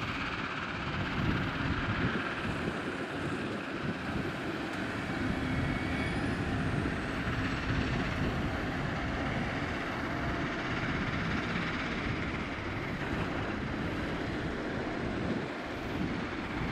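Caterpillar 972M XE wheel loader driving with its diesel engine running steadily.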